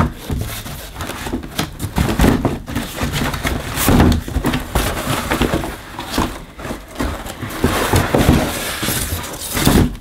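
Cardboard packing inserts scraping and rustling, with repeated knocks, as a Dyson DC01 vacuum cleaner's wand is pulled out of the bottom of its box.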